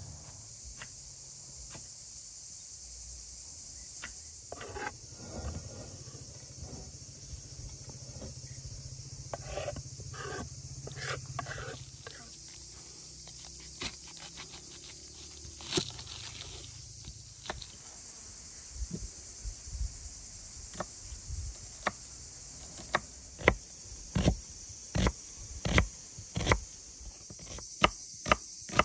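Kitchen knife cutting a red onion on a wooden cutting board: soft clicks and scrapes at first, then, from a little past halfway, sharp knocks of the blade on the board about one or two a second as the onion is diced. Steady insect chirring runs underneath throughout.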